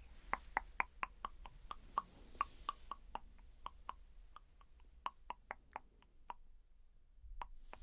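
A rapid run of faint, light clicks, about four or five a second, growing sparser toward the end.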